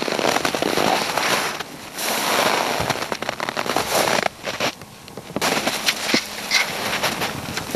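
Footsteps crunching in dry snow, with clothing rustling close to the microphone, broken by two short pauses.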